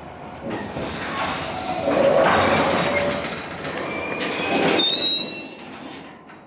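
Moving freight train heard from aboard a wagon: a dense rumble and clatter of wheels on rails that swells and eases, with brief high wheel squeals about four to five seconds in.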